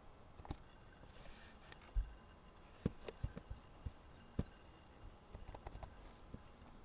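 Faint, scattered clicks of a computer mouse and keyboard, with a low thump about two seconds in.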